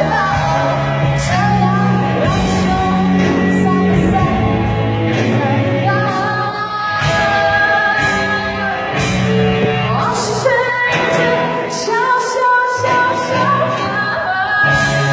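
A pop-rock band playing with a lead vocalist singing long, held notes over a steady bass and drum beat.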